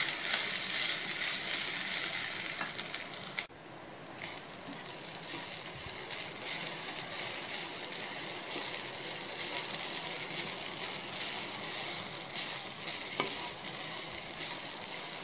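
Grated coconut and cashews sizzling in hot ghee in a nonstick kadai, stirred and scraped with a wooden spatula as the coconut roasts. The sizzle dips sharply for a moment about three and a half seconds in, then returns steady.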